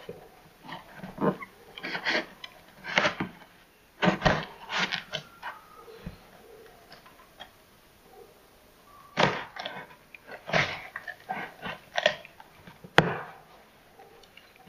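A knife stabbing and slicing open a large cardboard box: irregular scraping, ripping and rustling strokes with short pauses between them, and one sharp knock near the end.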